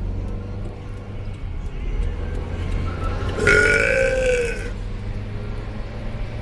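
One long, loud burp a little over three seconds in, lasting just over a second and bending in pitch, over a steady low hum.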